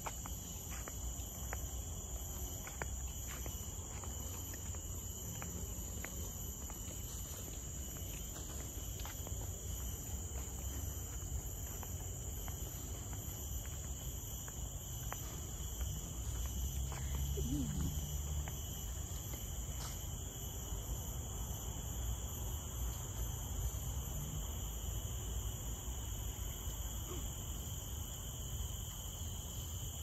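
Steady insect chorus in a tropical forest: several unbroken high-pitched drones at different pitches, over a low rumble and faint scattered ticks.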